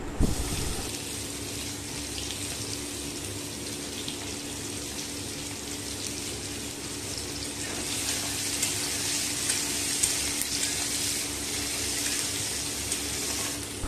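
Sliced onions sizzling and crackling in hot mustard oil with cumin seeds, a steady hiss with fine crackles that grows louder about eight seconds in as the onions are stirred.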